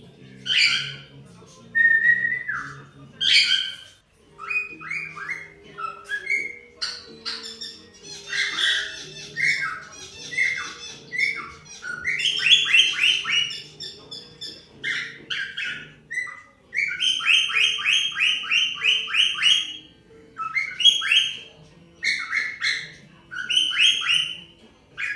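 Cockatiels chirping and calling: loud, sharp calls and quick runs of repeated chirps, with a short whistled note about two seconds in.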